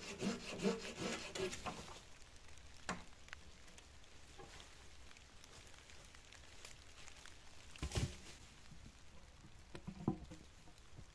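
Hand saw cutting through a wooden log in quick back-and-forth strokes, two or three a second, that stop a little under two seconds in. After that, faint rustling in dry leaf litter with a few light knocks and one heavier thump about eight seconds in.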